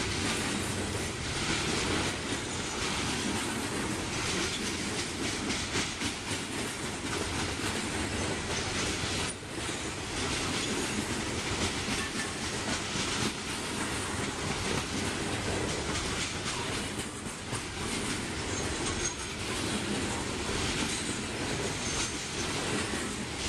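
Freight train's coal hopper cars rolling past at close range: a steady rumble with wheels clacking over the rail joints.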